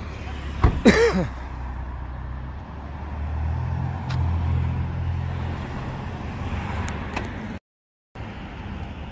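A car passing on the road, a low engine-and-tyre rumble that swells through the middle and then eases. About a second in, a short loud cry with falling pitch cuts across it, and the sound drops out completely for half a second near the end.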